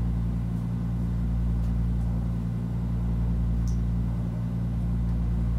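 A steady low hum, made of several constant low tones, with no change in level.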